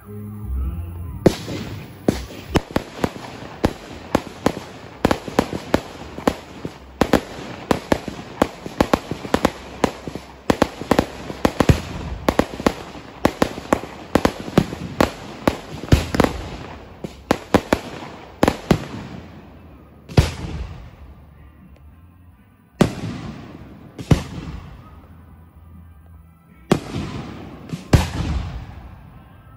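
Fireworks going off: a rapid, dense run of sharp bangs for most of the first two-thirds, then a handful of separate loud bangs a few seconds apart, each trailing off.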